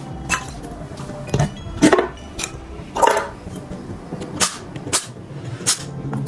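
Sharp metallic clinks and knocks of tools and parts during engine disassembly: about eight irregular strikes, the loudest about two seconds in and again about three seconds in, over faint background music.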